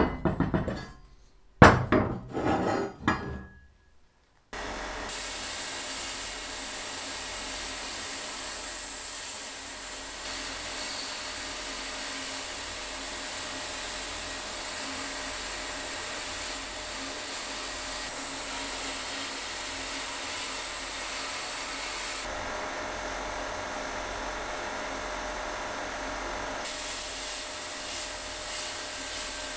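Cast-iron wheels knocking and sliding on a wooden tabletop as they are set down, a few sharp knocks. Then a sandblast gun inside a blast cabinet hisses steadily as it strips rust and old paint from the cast-iron parts. For a few seconds near the end the high part of the hiss drops away, then comes back.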